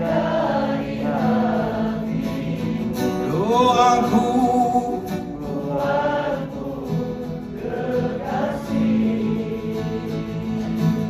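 Live singing of a slow Malay ballad chorus over a strummed acoustic guitar, with many voices singing along, long notes held and sliding between words.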